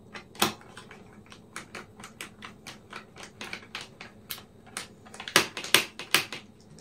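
Small screwdriver driving in the retaining screw of a laptop's optical-bay hard-drive caddy: a quick run of irregular metallic clicks, about four or five a second, with a few louder ones near the start and near the end.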